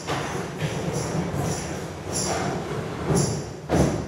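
Live chamber-ensemble music: a string of short rattling shakes, roughly one a second, over a low sustained tone.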